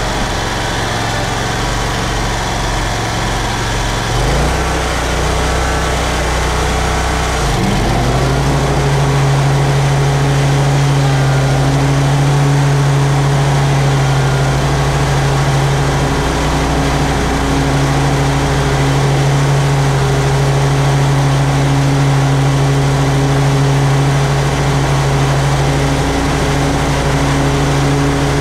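Toro Z-Master 4000 zero-turn mower's engine running; about eight seconds in it revs up, then holds a higher steady speed.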